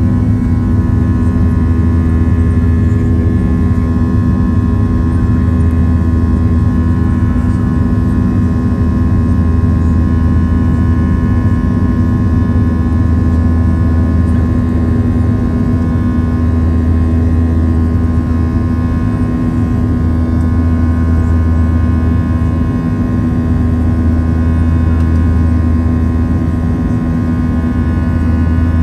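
Boeing 737-700 jet engine noise heard inside the passenger cabin: a steady, loud drone with a low hum and several steady higher tones, unchanging throughout.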